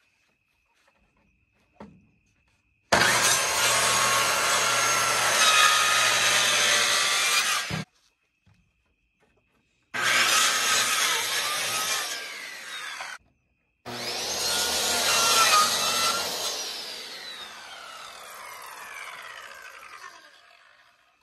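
Circular saw cutting through wooden boards in three runs, the first about five seconds long. The last run ends with a falling whine as the blade spins down. A single light knock comes about two seconds in, before the first cut.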